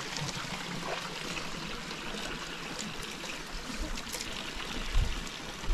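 Spring water running steadily, an even rushing hiss, with a brief low thump about five seconds in.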